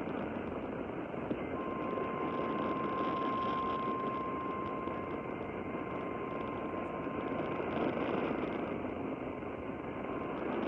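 AM radio static and hiss, with a faint steady single-pitched alert tone a little above 1 kHz that comes in about a second and a half in and holds for roughly nine seconds before stopping near the end.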